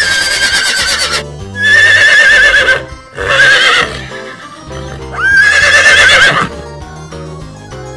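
A horse neighing four times, each whinny about a second long with a quavering pitch, over children's background music.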